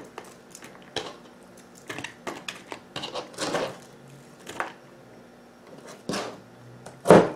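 Chef's knife cutting cabbage on a plastic cutting board and cut cabbage pieces being dropped into a plastic tub: scattered taps and a few short rustles.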